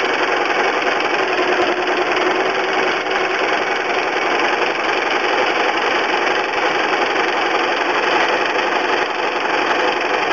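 Sewing machine running steadily without pause, sewing a straight stitch through fused applique fabric under an open-toed darning foot with the feed dogs up.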